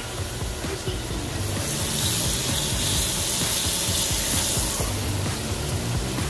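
Venison backstrap medallions searing in butter and olive oil in a cast iron skillet: a steady, fairly loud sizzle, with background music underneath.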